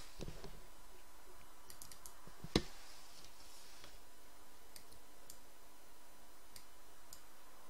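Computer mouse buttons clicking: a few scattered single clicks, with one much louder click-knock about two and a half seconds in.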